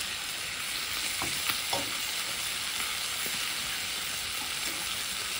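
Hand-chopped beef patties and onion slices sizzling steadily in a frying pan, with a few light taps about a second in as a slotted spatula turns the onions.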